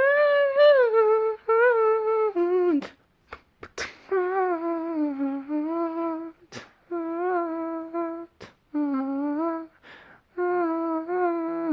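A single voice humming a wordless melody, without accompaniment, in held notes with a slight waver, broken into about six phrases by short pauses with small clicks between them.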